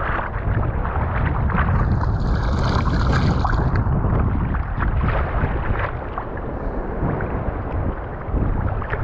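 Shallow seawater sloshing and splashing around legs as someone wades, with wind rumbling on the microphone.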